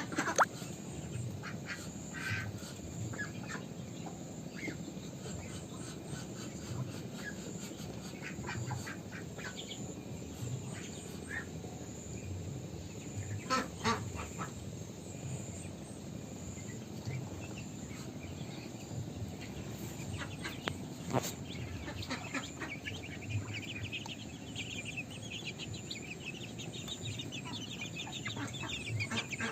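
A pen of ducks calling, with scattered quacks over the steady background of the flock. Late on, a continuous run of quick high calls sets in.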